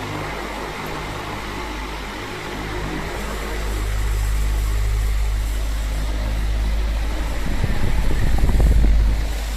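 Oscillating electric fan running with a steady motor hum. A low rumble of moving air on the microphone swells from about three seconds in and is loudest near the end, then drops back.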